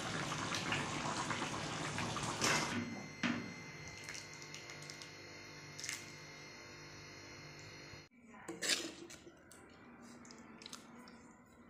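A steel ladle clinks a few times against a metal kadhai of chicken curry over a steady hiss. An abrupt cut about eight seconds in leads to quieter, scattered clinks of serving utensils and dishes.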